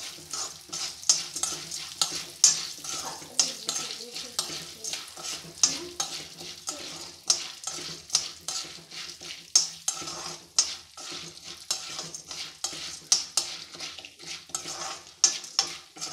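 A spoon stirring raw popcorn kernels around a kadhai in hot oil. The kernels rattle and scrape against the pan in repeated strokes, one or two a second, over a light sizzle. The kernels are being coated with oil, salt and turmeric and have not yet started popping.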